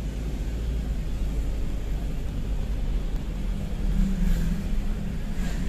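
A vehicle on the move: steady low road and engine rumble, with a low engine hum that comes up about three and a half seconds in.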